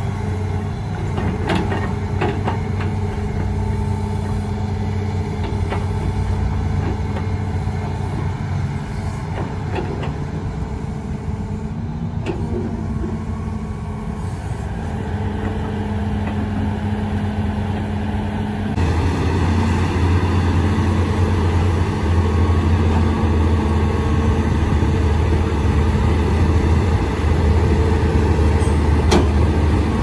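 Hitachi hydraulic excavator's diesel engine running steadily, its note stepping up and growing louder about two-thirds of the way through as the machine works.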